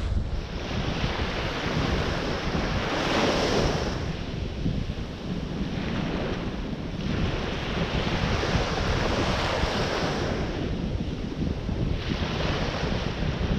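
Ocean surf breaking and washing in, swelling and fading about three times, with wind rumbling on the microphone.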